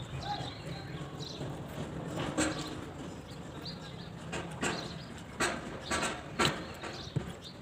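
Eating sounds: chewing and mouth smacks with fingers mixing rice on a steel plate, giving about half a dozen short sharp clicks, the loudest in the second half, over a low steady background hum.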